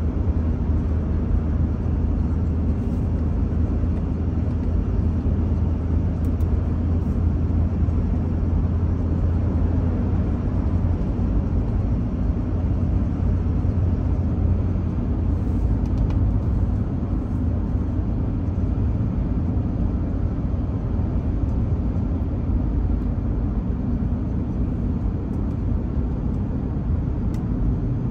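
Steady engine and road noise from a truck towing a car-hauler trailer, heard from inside the cab, with a constant low drone.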